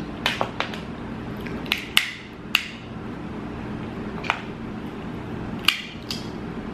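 Snow crab leg shells being cracked and picked at, about nine sharp, irregularly spaced snaps and clicks, over a steady low room hum.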